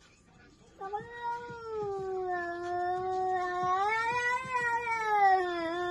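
A cat yowling: one long, wavering, drawn-out call starting about a second in, rising in pitch midway and then falling. It is a warning yowl at another cat it is squared off against.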